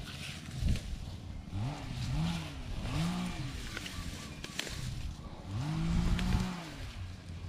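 An engine revving up and falling back several times: three quick revs, then a longer one near the end.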